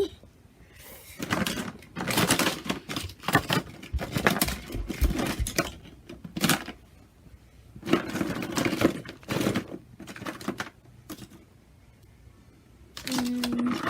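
Small plastic toys clattering and rattling as they are handled, in two spells of rapid clicking with a quiet gap between.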